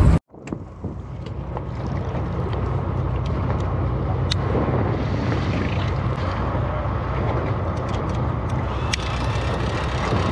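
Fishing boat's engine running steadily with wind on the microphone, and a few light clicks scattered through it.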